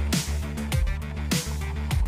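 Electronic background music with a steady beat: a deep kick drum about every 0.6 s over sustained bass notes, with a cymbal-like hiss on alternate beats.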